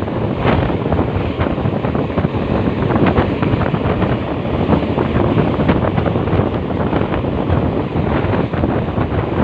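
Loud, steady wind buffeting on the microphone, with a low rumble underneath and no horn tones.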